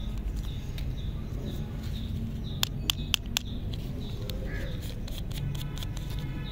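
Candy wrapper crinkling in the fingers, with a few sharp crackles about two and a half to three and a half seconds in and more near the end. A bird chirps repeatedly in the background, about twice a second, over a low steady rumble.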